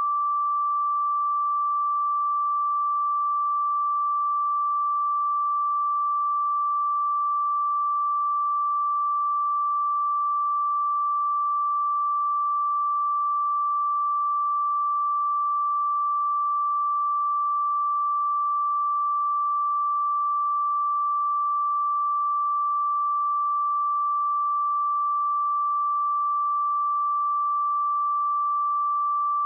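A pure 1168 Hz sine-wave test tone, held steady at one pitch and level.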